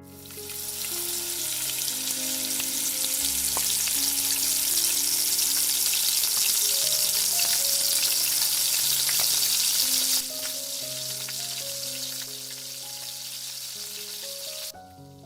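Food frying in hot oil in a pan, with a dense, crackling sizzle. The sizzle drops to a lower level about two-thirds of the way through and stops abruptly just before the end, with soft piano music underneath.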